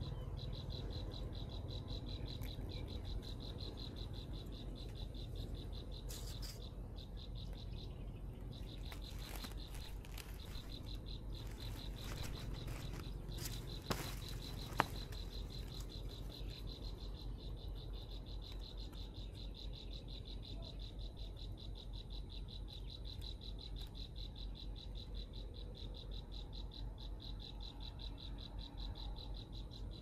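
Insects trilling steadily, a high, rapidly pulsing drone over a low rumble, with two sharp clicks a second apart about halfway through.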